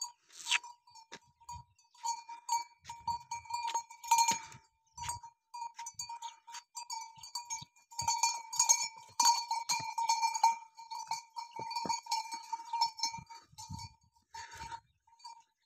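A neck bell on a walking dromedary camel, clanking irregularly with each step and ringing on one note between strikes.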